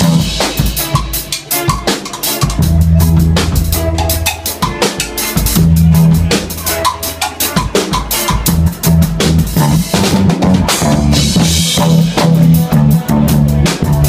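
Live band playing loud: a drum kit played hard with frequent snare, bass-drum and cymbal strokes, with electric guitar and deep held bass notes underneath.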